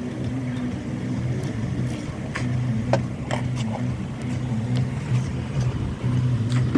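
A steady low machine hum that fades in and out, with scattered clicks and taps.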